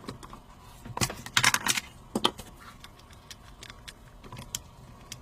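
Small metal clicks and rattles of a Beretta 92 pistol's grip panels and grip screws being worked loose and handled, with a quick cluster of clicks about a second in.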